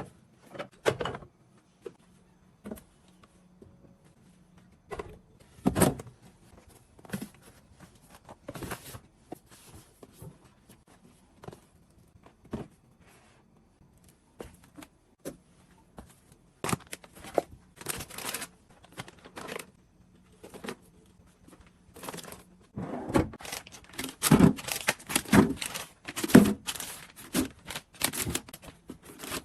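Packaging being handled: rustling, tearing and crinkling, with items knocked and set down at irregular intervals. It grows busier and louder over the last several seconds.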